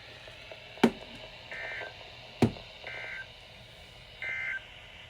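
Emergency Alert System end-of-message signal: three short, identical bursts of SAME digital data tone, a little over a second apart, marking the end of the alert. Two sharp clicks, the loudest sounds, come before the first and second bursts.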